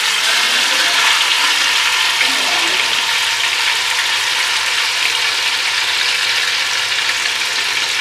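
Marinated chicken leg pieces frying in a little hot oil in a pan, a steady sizzle that holds level throughout.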